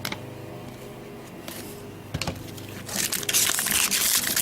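Trading card pack wrapper being handled and crinkled, with a few light clicks of card handling, growing into loud continuous crinkling about three seconds in as the pack is torn open.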